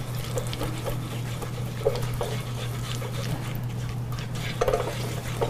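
A spatula stirring and scraping in a frying pan of bacon grease with brown sugar being mixed in: short scrapes and taps over a steady low hum.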